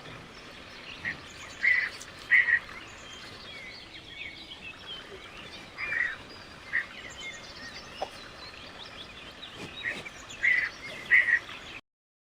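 A recording of birds calling, played as the pelican's sound: loud short calls, several in pairs, over a background of many small chirps. It cuts off suddenly near the end.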